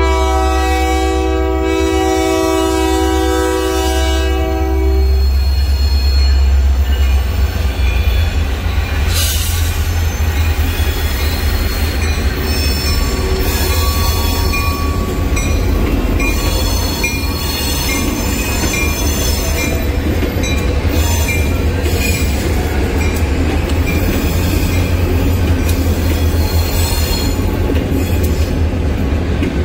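Freight train's diesel locomotive horn sounding a chord of several notes for about five seconds. Then the train rolls past: locomotive rumble, wheels clicking over the rail joints, and intermittent high wheel squeal as hopper cars go by.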